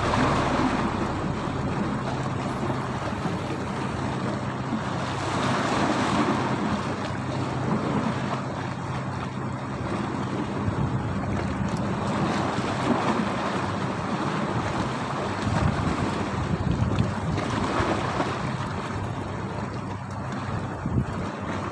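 Strong wind buffeting the microphone over waves washing around a small fishing boat at sea, the rush swelling and easing every few seconds.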